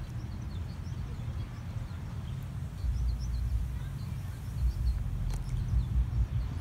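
Wind rumbling on the microphone, with small birds chirping in short scattered notes.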